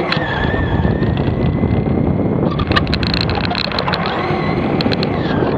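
Radio-controlled toy car driving with its motor whining steadily, and a burst of clattering and rattling as it runs over rough ground midway through.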